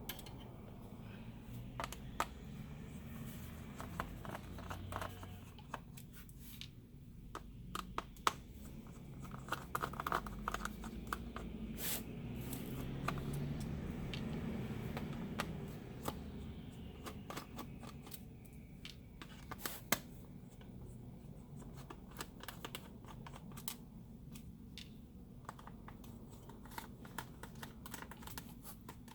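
Phillips screwdriver turning screws out of a plastic laptop case: irregular small clicks and scratches, with a louder stretch of rubbing about halfway through.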